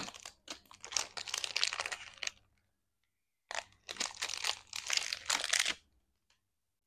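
A plastic foil lollipop wrapper crinkling and crackling as it is handled and pulled off the lollipop, in two spells with a short gap about halfway through.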